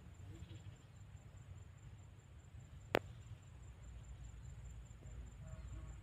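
Low, steady outdoor rumble with a faint, steady high-pitched whine, broken by one sharp click about halfway through.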